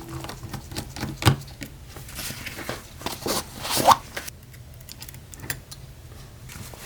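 Small clicks, taps and scrapes of hand tools working on an iPhone 8 during a screen repair, including a short rising squeak a little before the halfway point, over a faint steady low hum.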